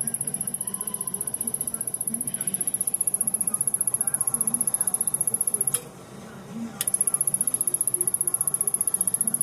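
Samsung rear projection television's power circuit ticking rapidly and evenly in a high pitch, which the owner takes for something shorting out without blowing the internal fuses. About six seconds in the ticking breaks off with a click and starts again with another click about a second later.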